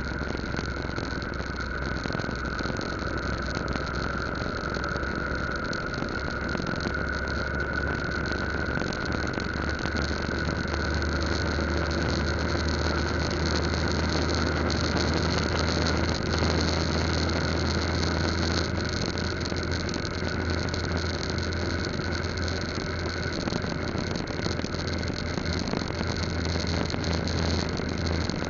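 Yamaha Lagenda 115Z's single-cylinder four-stroke engine running steadily at cruising speed, mixed with wind and road noise on an onboard camera.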